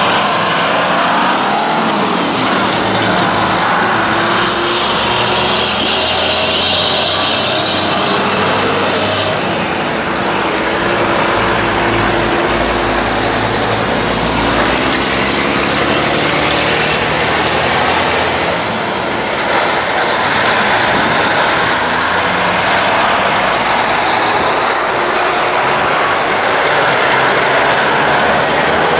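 Vintage Brockway semi tractors driving past one after another, their diesel engines running under way with heavy tyres on the pavement, the sound continuous and steady in level.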